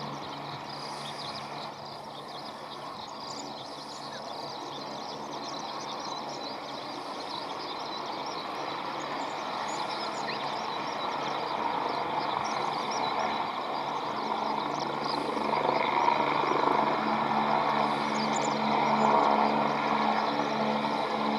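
Aircraft engine noise growing steadily louder as the aircraft approaches, with a steady hum that climbs slightly in pitch about two-thirds of the way through.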